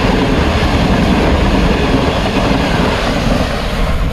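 Pakistan Railways Green Line Express passenger coaches passing close by at speed: a loud, steady rush of wheels on rails.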